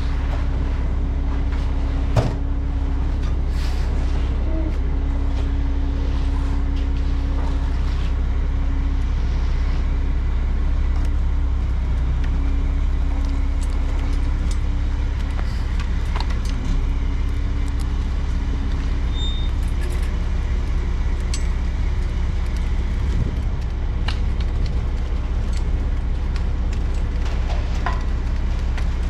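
Concrete mixer truck's diesel engine running steadily, with a deep continuous rumble, while the concrete is poured. A sharp knock comes about two seconds in.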